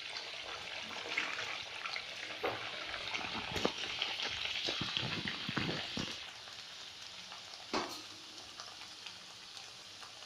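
A pumpkin gharga (sweet puri) sizzling and bubbling in hot oil in a kadhai, with scattered crackles. The sizzle settles lower about six seconds in.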